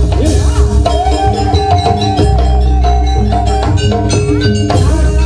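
Live jaranan ensemble music: continuous drumming and percussion under a melody line that holds one long steady note through the middle.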